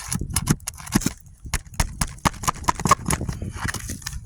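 Irregular clicks, knocks and crackles of brittle old asphalt shingles being pried loose and breaking apart, over a low rumble.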